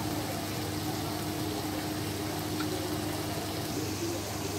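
Chopped vegetables and shredded chicken sizzling steadily in a frying pan, with a steady low hum underneath.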